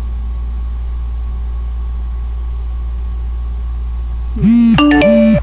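A steady low hum. Near the end a woman's voice makes a short, louder two-part hum, like "mm-hmm".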